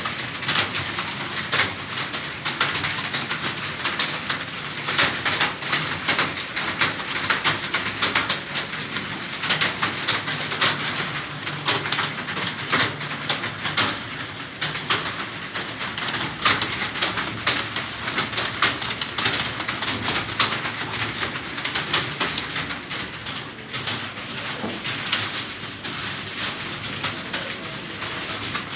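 Computer keyboard being typed on quickly and steadily: a dense, continuous run of key clicks, the sound of a timed typing test in progress.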